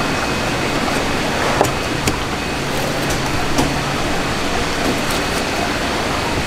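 Steady background hiss of a busy shop, with a few light taps of a sashimi knife against a plastic cutting board as a flatfish fillet is cut.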